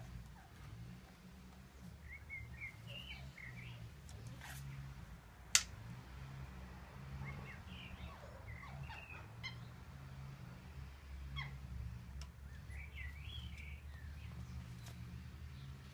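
Recurve bow shot once: a single sharp snap of the bowstring about five and a half seconds in, the loudest sound. Small birds chirp in short bouts around it, over a steady low hum.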